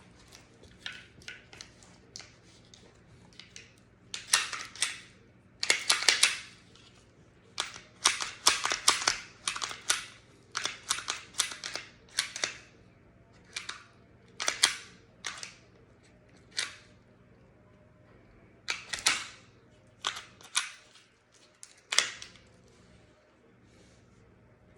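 Sharp metallic clicks and clacks from a Smith & Wesson M&P 9mm pistol being handled while it is cleaned. They come irregularly, some singly and some in quick clusters, with the densest run a few seconds in.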